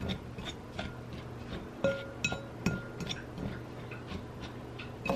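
A metal fork tossing crumbly dough in a ceramic bowl, clinking and scraping against the bowl at irregular intervals; several clinks ring briefly.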